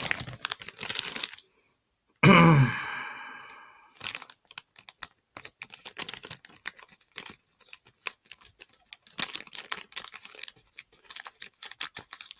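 A small foil blind bag being cut and torn open by hand, with dense irregular crinkling and crackling. About two seconds in comes a single loud sound whose pitch falls as it fades over about a second and a half.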